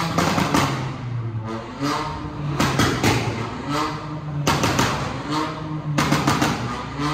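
Car engines revving, their pitch rising and falling again and again over a steady low hum, with a run of sharp rapid hits about two-thirds of the way through.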